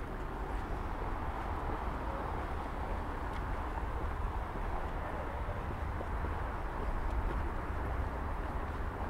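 Steady city street ambience: a continuous low rumble and hiss of distant traffic, with a few faint clicks.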